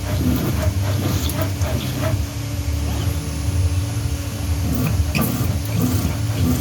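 CNC router's 5.5 kW spindle running at speed with a steady whine over a heavy low rumble, with scattered short ticks through it.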